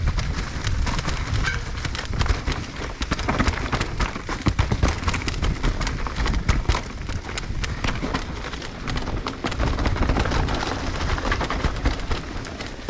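Mountain bike riding fast down a dirt trail covered in dry leaves: tyres crunching and scattering leaves while the bike rattles and clatters over bumps, with a low wind rumble on the rider-mounted camera's microphone.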